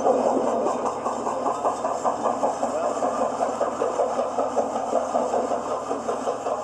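Sound-equipped HO-scale New York Central steam locomotive model, its sound decoder chuffing in a steady, quick rhythm as it runs.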